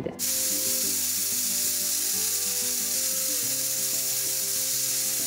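Stovetop pressure cooker hissing steadily as steam vents from it while it builds toward a whistle, under soft background music.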